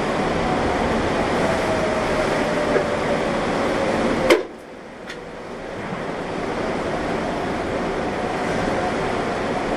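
Storm wind and heavy rain rushing steadily, with a faint steady tone underneath. A sharp click comes a little past four seconds in, after which the noise drops off abruptly and slowly builds back up.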